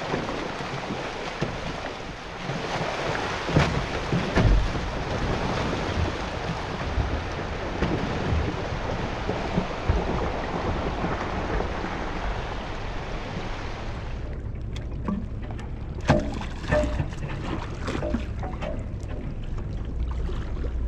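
Water hissing and rushing along a sailing yacht's bow as it moves through brash ice, with wind on the microphone and occasional sharp knocks. About two-thirds through, this gives way abruptly to a quieter, low steady hum with scattered knocks and clicks.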